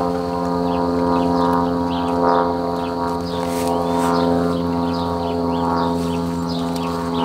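Swarm of honeybees humming: a steady drone of several overlapping pitches, with short high chirps scattered over it.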